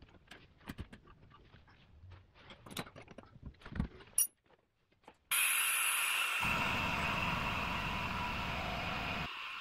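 Clicks and taps of tools and hands on a brake caliper and bleeder valve. About five seconds in, a steady hiss starts suddenly, with a lower rumble joining a second later: the vacuum fluid extractor drawing brake fluid out through the opened bleeder.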